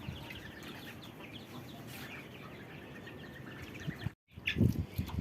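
Young poultry calling: many quick, thin peeps and clucks from a flock of chicks and chickens, with a brief break about four seconds in.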